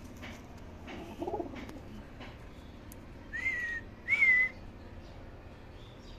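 A domestic pigeon gives a brief low coo about a second in. Then come two loud, clear whistled notes, each about half a second long, rising and then falling in pitch.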